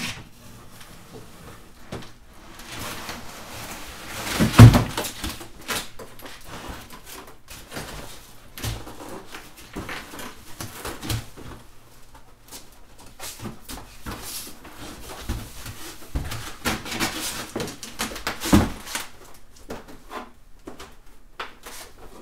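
Handling noise from unpacking a mini-split indoor unit: cardboard and packaging rustling and scraping, with scattered knocks. One loud thump about four and a half seconds in and another near the end.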